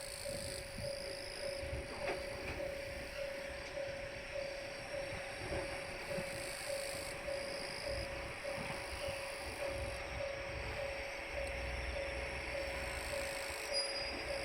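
Japanese level-crossing warning alarm ringing its repeating 'kan-kan' tone, about one and a half beats a second, steady.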